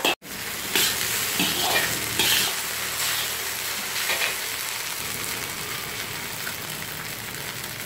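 Fried rice sizzling in a large wok while a metal spatula scrapes and turns it, with several scraping strokes in the first few seconds, then a steadier sizzle. A split-second gap in the sound just after the start.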